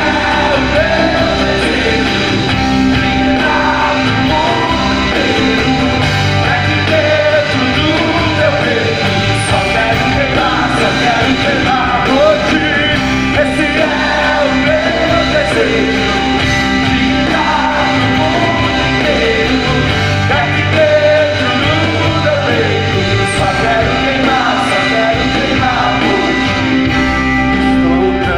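Live worship band playing through a PA: several voices singing a Portuguese-language song together over guitars and bass.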